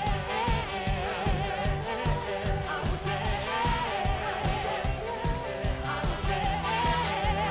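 Live worship band music with a steady, regular drum beat under singing voices that waver in pitch but carry no clear words.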